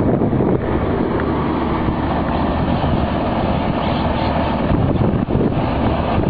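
Feed mixer wagon running close by, a steady, loud mechanical drone from its drive and mixing gear, with no breaks.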